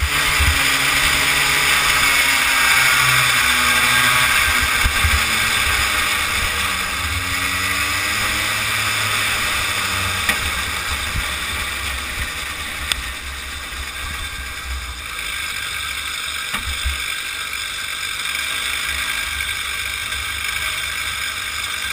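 Kid kart engine running, heard from the kart itself with wind rushing past the microphone; the engine note rises and falls through the corners, then drops and quiets in the second half as the kart slows.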